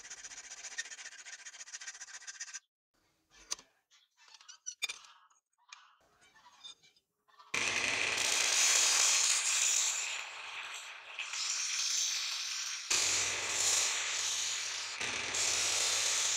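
A hand file rasping in quick strokes across the edge of a steel knife blank, then after a few near-quiet seconds with a few small knocks, a bench-mounted abrasive disc grinder grinding a steel blade from about seven seconds in: a loud, steady, hissing grind over a low motor hum, rising and falling as the blade is pressed and shifted.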